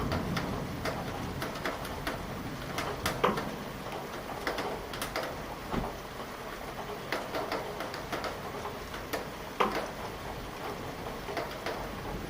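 Steady rain falling, with heavy drops striking a hard surface close by as irregular sharp taps; two taps, about three seconds in and near ten seconds in, stand out.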